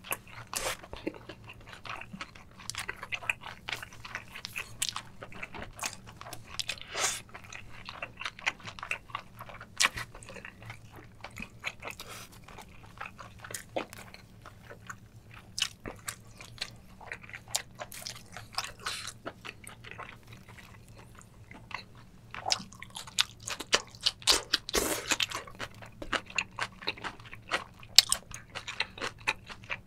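Close-miked eating sounds from spicy braised octopus, chicken and crisp whole-leaf kimchi: wet chewing with many small crunches and mouth clicks, thickening into a busier run of crunching a little past two-thirds through. A faint steady low hum runs underneath.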